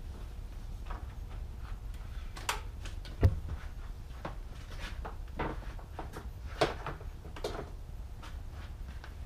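Scattered knocks and light clatter of objects being handled, the loudest a sharp knock about three seconds in, over a low steady hum.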